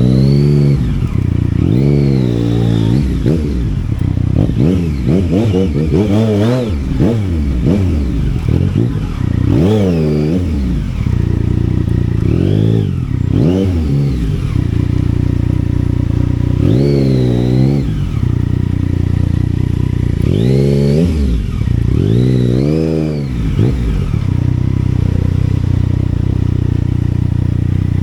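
Yamaha Tracer 900's three-cylinder engine revving up and dropping back again and again, about eight rises in pitch, with steady running between them and near the end.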